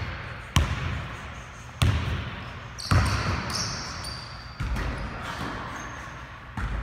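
Basketball bouncing on a hardwood gym floor: about five hard bounces, one to two seconds apart, each ringing on in the echoing hall.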